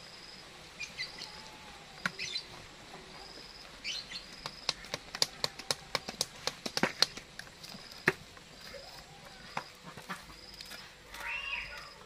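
A piece of cardboard fanning a small charcoal fire, giving a run of sharp slaps and clicks that is densest and loudest in the middle seconds. A bird chirps throughout with short high notes about once a second.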